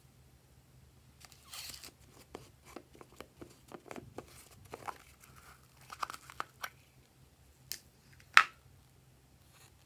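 Plastic slime container being opened by hand: irregular crinkling and plastic clicks as the topper cup and lid are worked off, with one sharp, loudest click near the end.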